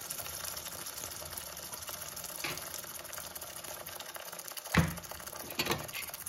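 Butter sizzling and foaming as it melts in hot caramelised sugar in a kadhai, a steady fine crackle. A sharp click about five seconds in, and a smaller one just after.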